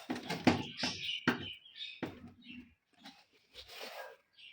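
A quick run of sharp clicks and knocks in the first two seconds, followed by fainter scattered clicks and brief high chirps.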